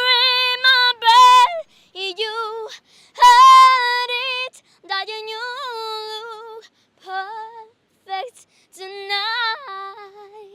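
A young girl singing solo without accompaniment, in phrases of long held notes with vibrato and short breaks between them; a note slides upward near the end.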